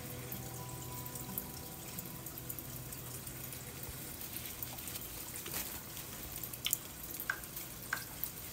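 Water trickling and dripping, with scattered small clicks and knocks; a few short squeaky blips near the end.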